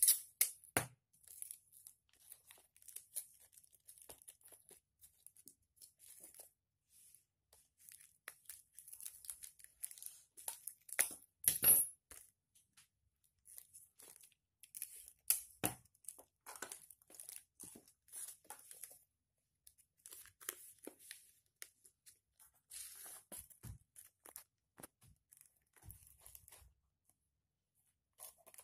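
Paper tubes and tape-wrapped cardboard being handled: faint, irregular crinkling and rustling with light taps, and a few sharper clicks near the middle.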